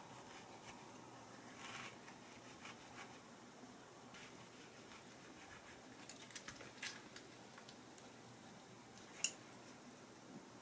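Faint kitchen handling sounds of a knife scoring around the stone of a whole peach and small metal tongs prying at the pit to pull it out: soft scrapes and light clicks, a few close together, then one sharper click about nine seconds in.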